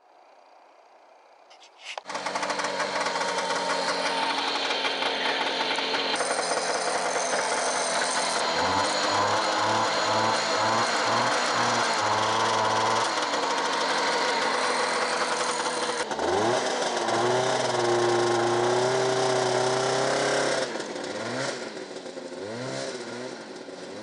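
Yamaha Enticer snowmobile's two-stroke engine running and being revved repeatedly, coming in suddenly about two seconds in and dropping quieter near the end.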